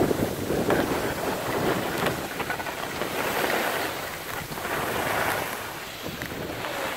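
Skis hissing and scraping over packed snow while skiing downhill, rising and falling in swells with the turns, with wind noise on the microphone.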